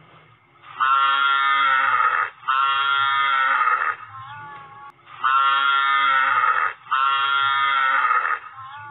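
An animal's drawn-out pitched call, heard four times in two pairs, each call about a second and a half long.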